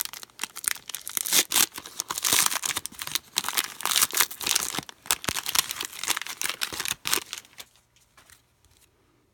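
Trading-card pack wrappers being ripped open and crinkled: a dense run of tearing and crackling that stops about seven and a half seconds in.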